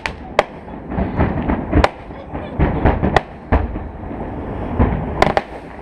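Fireworks going off: irregular sharp cracks mixed with deeper booms.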